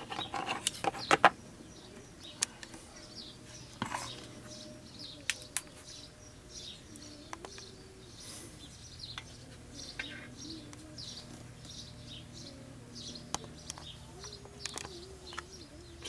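Small birds chirping faintly and repeatedly in the background. Within the first second or so there are a few sharp knocks and clicks of handling.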